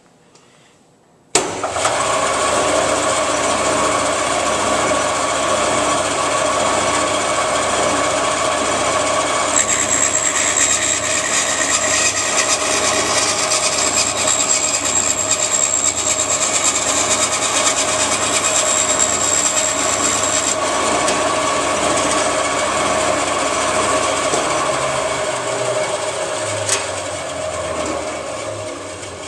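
Woodworking band saw switched on with a sudden start and running steadily. From about a third in, for roughly ten seconds, the blade cuts through a block of wood with a high whine over the motor. Near the end the saw winds down.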